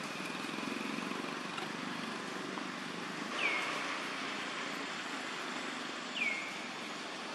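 Steady outdoor hiss with two short, high calls about three seconds apart, each sliding quickly down in pitch and then levelling off.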